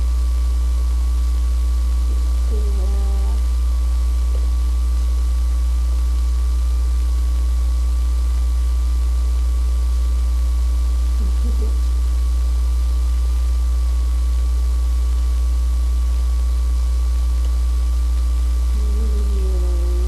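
Steady low mains hum, with a fainter steady higher tone over it. A few faint short sounds come in about three, eleven and nineteen seconds in.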